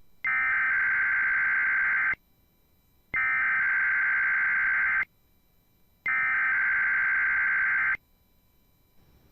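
Emergency Alert System SAME header from a NOAA Weather Radio broadcast: three identical bursts of buzzing digital data tones, each about two seconds long with a second's pause between. The header opens a Required Weekly Test.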